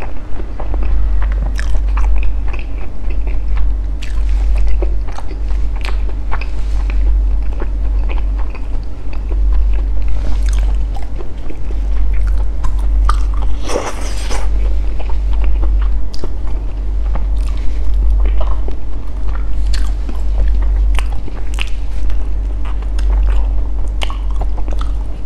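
Close-miked eating sounds: wet chewing and lip smacking on soft durian flesh and sticky rice, with small clicks throughout over a steady low hum. A brief rustle comes a little past halfway.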